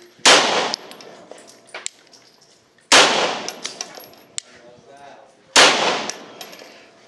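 Three pistol shots about two and a half seconds apart, each with a short ringing echo: a .40-calibre Glock 35 firing 9mm rounds through a 9mm conversion barrel.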